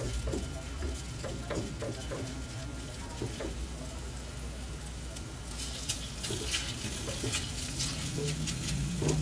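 Food frying in a pan while it is stirred, with a steady crackle and scattered clicks of a utensil that become frequent from about halfway.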